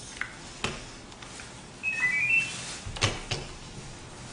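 A short electronic chime of a few quick high notes stepping upward, about two seconds in. A few sharp clicks come before and after it.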